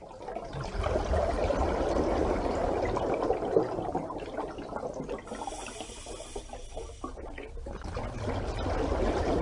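Rushing water sound effect, a continuous pouring, bubbling wash of water that builds up over the first second, dips about seven seconds in, then swells again.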